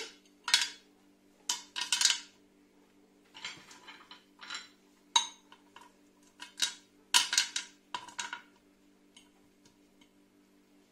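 Small white pebbles clicking against each other and against the glass of a terrarium jar as they are set in by hand: about ten short, irregular clacks that stop a little over two-thirds of the way through.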